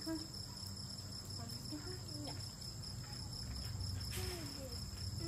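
Crickets trilling steadily in a high, unbroken tone, with brief quiet talk from people at the meal now and then.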